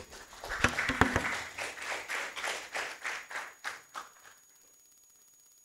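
A group of people applauding, a patter of hand claps that dies away about four seconds in.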